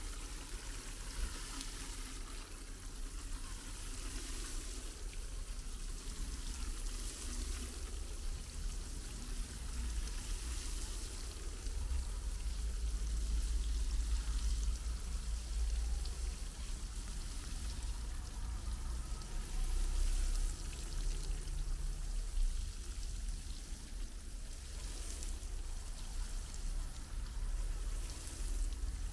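Water spray falling like rain onto the soil, mulch and stones of a freshly planted pine's bed: watering it in. A steady hiss of falling drops with a low rumble beneath.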